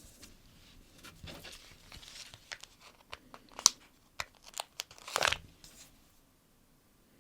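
Sticker-book stickers and paper sheets being handled: a scatter of small ticks and crinkles, with a louder peeling rasp a little after five seconds as a sticker comes off its backing sheet.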